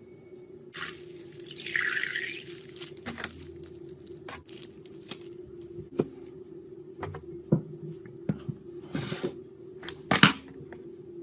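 Liquid pouring into a container for about two seconds, followed by slime being mixed: scattered wet clicks and squishes, the loudest near the end, over a steady low hum.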